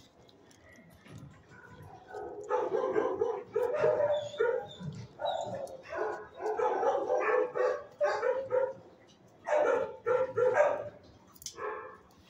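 Dogs barking in quick repeated runs, starting about two seconds in, with a short lull before a last burst near the end.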